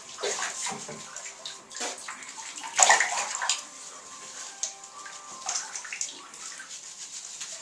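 Water splashing and sloshing in a bathtub as a dog is washed, in irregular bursts with the loudest splash a little under three seconds in.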